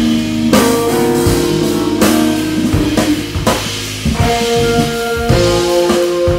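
Jazz trio playing live: Gibson L-4 archtop electric guitar, keyboards and drum kit. Held notes and chords with drum and cymbal accents about every second and a half, easing briefly about four seconds in before a new chord comes in.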